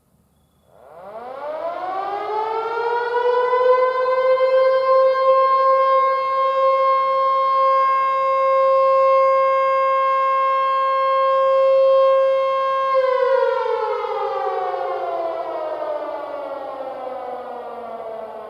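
Model 2 outdoor warning siren sounding its fire signal. It winds up quickly from silence to a steady, rich tone, holds it for about nine seconds, then slowly winds down in pitch.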